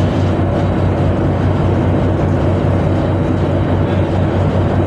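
A tugboat's engine machinery running steadily: a loud, unbroken low drone with a deep hum.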